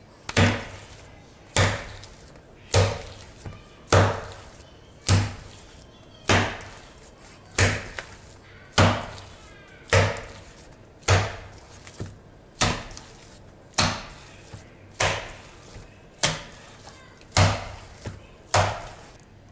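Handfuls of minced chicken and pork fat slapped down hard into a stainless steel bowl, a wet thud with a short metallic ring, about once every 1.2 seconds, sixteen times. This is the beating of lula kebab mince, worked until it turns sticky and stringy so that it will hold on the skewer.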